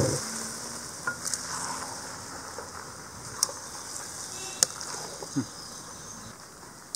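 Noodles sizzling softly in a hot stainless-steel frying pan as a metal spatula tosses them, with a few sharp clicks of the spatula against the pan.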